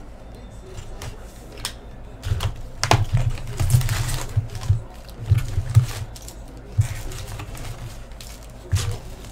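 Plastic shrink-wrap crackling and cardboard clicking and tapping as a sealed hobby box of hockey cards is unwrapped and opened and its packs handled. The clicks come thickest around the middle, with a longer crackle of plastic about four seconds in.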